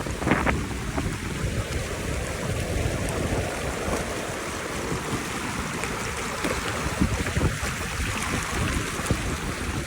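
Mountain river rushing in a steady hiss of water, with wind buffeting the microphone in an uneven low rumble.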